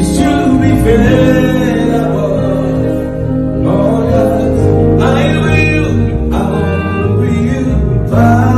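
Live gospel worship music: long held notes over a steady bass line, with singing.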